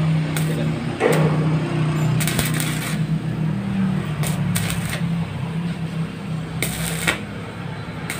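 Stick welding on a steel gate frame at its guide wheel: a steady low arc buzz with irregular crackling and sputtering that flares up several times.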